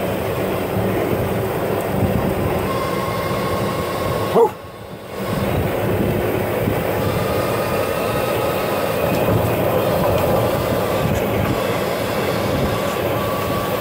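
Golf cart running along a path: a steady ride noise with a faint steady whine. About four seconds in, a sudden loud knock, after which the sound drops away for nearly a second before the running noise comes back.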